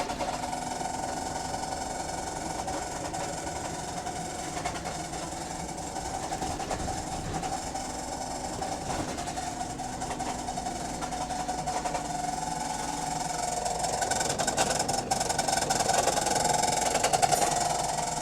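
Interior sound of a bus under way: engine and Voith automatic gearbox with a steady whine and light rattles. The sound swells louder in the last few seconds.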